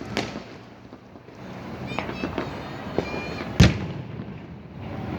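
Fireworks going off: a sharp bang just after the start and a louder bang about three and a half seconds in. Between them come short high whistles and a steady crackle.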